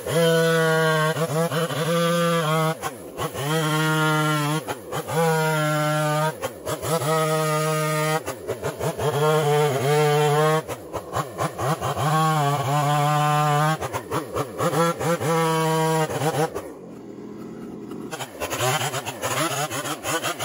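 Two-stroke chainsaw bucking logs: repeated cuts at full throttle, each holding an even pitch for a second or two, with the engine dropping and revving back up between them. Around two-thirds of the way through it falls to a low idle for about two seconds, then revs and cuts again.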